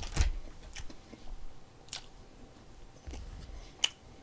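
A person chewing food close to the microphone, with a few sharp clicks and crunches scattered through it.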